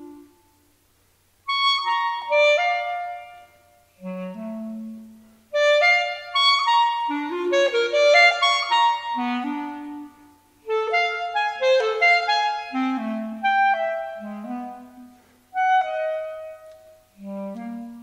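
Solo clarinet playing quick, leaping phrases broken by short pauses. The phrases jump between low held notes and high rapid runs. It comes in after about a second and a half of quiet.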